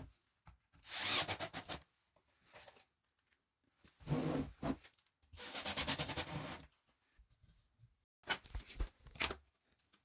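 Cordless drill working into laminated panels in four short bursts, each under about a second and a half, with quiet gaps between.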